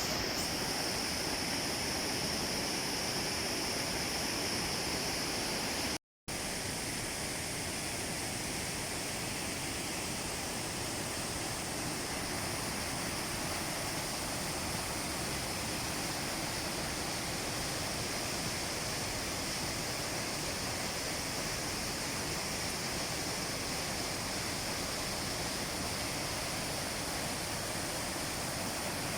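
Steady rushing of falling or fast-flowing water, an even roar with no change, cut off by a brief dropout about six seconds in.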